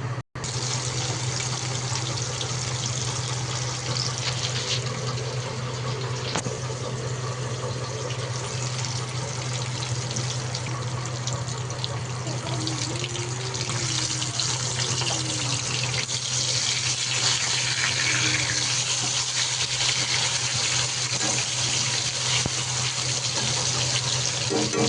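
Water running steadily from a kitchen tap into a sink, a continuous splashing hiss over a constant low hum.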